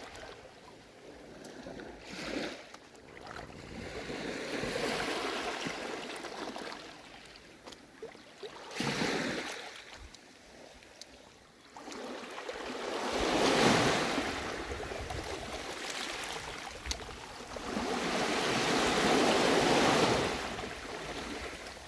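Sea waves breaking and washing in, a rushing surf that swells and fades in slow surges, the two loudest in the second half.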